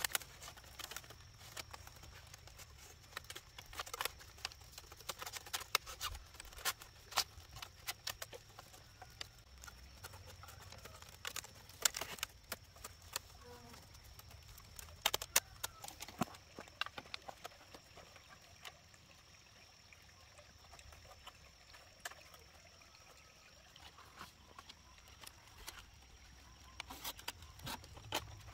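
Irregular light taps and clicks, scattered unevenly with a few sharper knocks, over a faint steady background.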